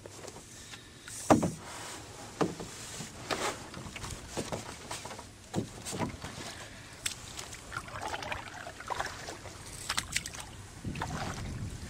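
Canoe being paddled: paddle strokes splashing in the water, with sharp knocks about once a second, the loudest about a second in.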